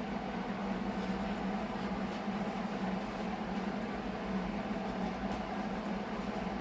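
Welding machine switched on and running with a steady hum.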